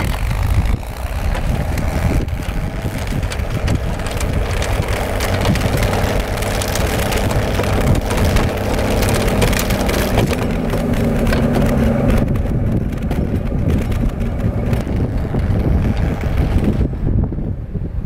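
1968 Bombardier tracked snow machine running and pushing snow with its front plow, its engine and tracks clattering and the snow crunching. It is loudest mid-way as it comes close, then fades as it moves off near the end.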